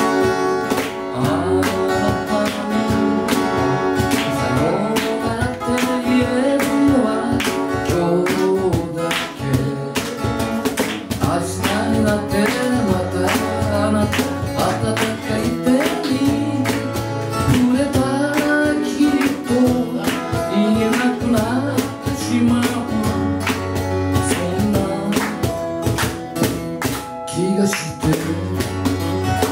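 Live acoustic band: two acoustic guitars strumming and picking chords over a cajon beat, with a man singing.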